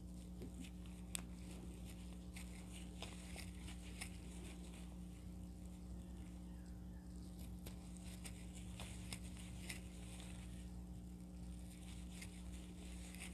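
Faint scattered ticks and soft rustles of a crochet hook and yarn as double crochet stitches are worked one after another, over a steady low hum.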